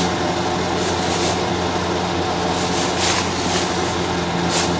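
A steady mechanical hum at one constant pitch, like a machine running, with a few short hisses over it.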